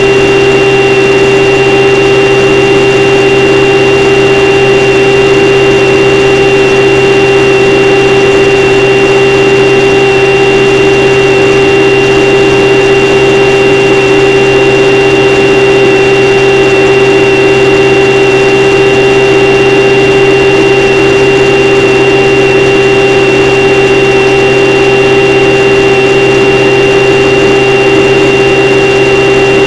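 Radio-controlled model plane's motor and propeller, heard close up from the onboard camera, holding one steady, unchanging pitch in level cruise, loud, over a rush of noise.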